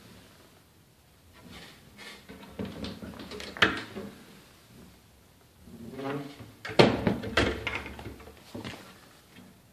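Painted cabinet doors being opened and knocked shut, several knocks and clatters, the loudest about seven seconds in.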